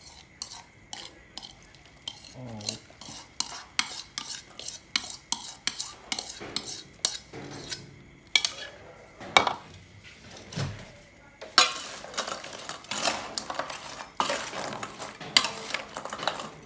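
A metal spoon clinking and scraping against a ceramic bowl as the dressing is spooned out. About two-thirds of the way through it gives way to a dense crunching clatter as pieces of crisp-fried giant snakehead are tossed with a spoon in a stainless steel bowl, the fish hard enough to sound tooth-breaking.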